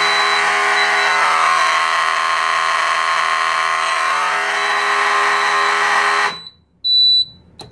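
Amseco BZ-54 motor horn sounding steadily on a 12 V Fire-Lite MS-112 panel's system test, which puts all zones into alarm; it cuts off suddenly a little over six seconds in. Shortly after, the BRK 2800 smoke alarm gives a brief high beep.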